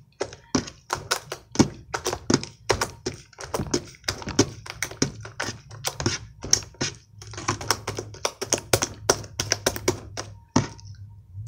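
Sticky, watered-down homemade slime being kneaded and pressed against a tabletop by hand: a quick run of wet clicks and squelches, about three to four a second, thinning out near the end.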